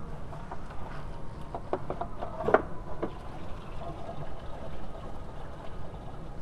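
A few sharp clicks and knocks from hands handling the lower radiator hose and the parts around it, the loudest about two and a half seconds in, over a low steady background noise.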